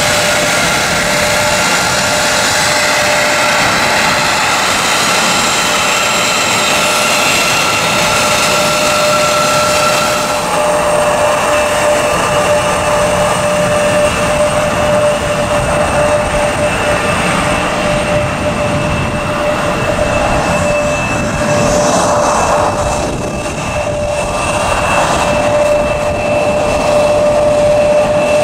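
Embraer ERJ-175's turbofan engines running at taxi power: a steady high whine over a broad rush of engine noise. The sound changes abruptly about ten seconds in, at a break in the recording.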